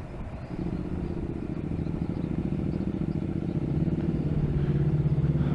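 A motor vehicle engine comes in about half a second in and runs steadily, growing louder, its pitch sagging slightly and then rising near the end.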